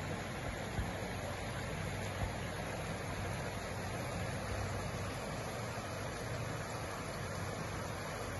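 An engine running steadily with a low hum under a constant hiss, with a couple of faint knocks in the first few seconds.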